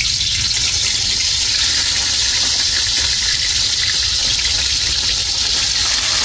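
Pieces of fish frying in hot oil in a wok, a steady loud sizzle.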